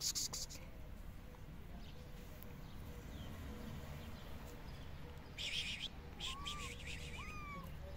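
Two brief bursts of rustling, one at the start and one about five and a half seconds in, then two or three short, high-pitched arched animal calls near the end.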